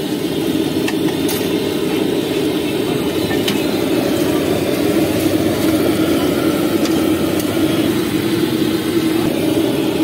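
A steady mechanical drone, loud and even, with a few faint ticks on top.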